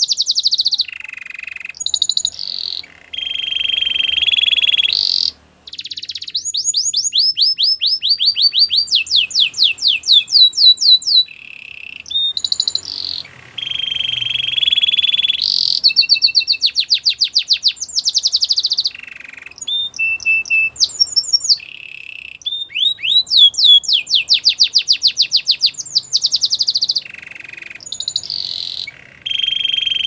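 White domestic canary singing a long song of fast trills of repeated sweeping notes and held buzzy rolls, in phrases broken by short pauses.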